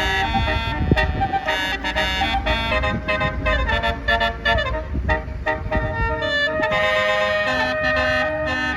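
Bus Basuri telolet horn, a multi-note air horn, playing a tune as a run of held notes that change step by step, over a low rumble.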